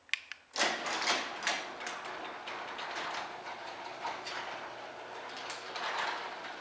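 A click, then a new sectional garage door and its opener start running about half a second in as the door closes. It makes a steady mechanical rattle with repeated knocks as the rollers travel in the tracks.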